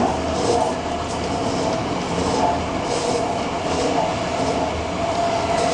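Tobu 50090-series electric train running along the track, a steady rolling rumble with a faint steady whine and irregular clacks of the wheels over rail joints.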